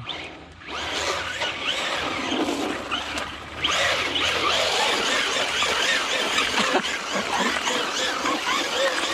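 Electric RC truck's brushless motor whining, its pitch wavering up and down with the throttle. It gets louder about three and a half seconds in.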